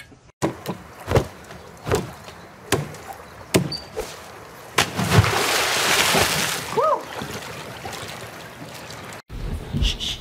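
Water splashing in a swimming pool: a loud rush of splashing about five seconds in that dies away over the next few seconds. Before it comes a run of sharp knocks, about one a second, and a short squeal sounds during the splash.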